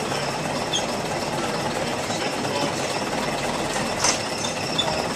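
An engine running steadily, with a single sharp click about four seconds in.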